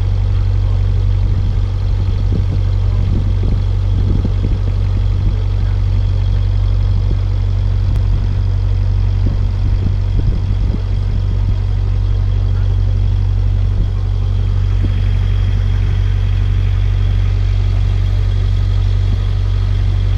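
Boat engine running at a steady speed, a loud low drone that holds an even pitch throughout.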